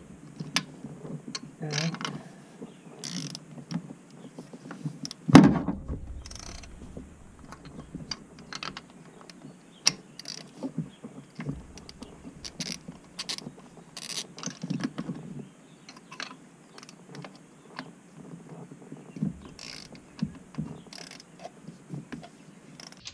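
Socket ratchet clicking, with tool clinks, as spark plugs are unscrewed from the engine, and one louder knock about five seconds in.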